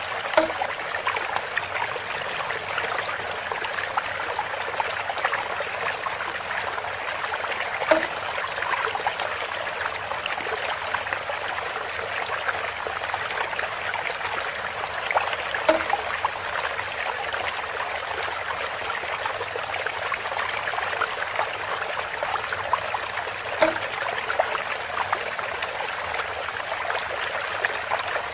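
Water trickling steadily through a bamboo spout. A short knock comes about every eight seconds.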